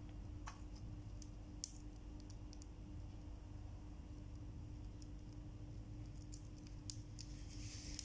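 Faint, scattered sharp clicks and ticks, irregular and a dozen or so in all, over a low steady hum, with a soft rustle near the end. No bird call is heard.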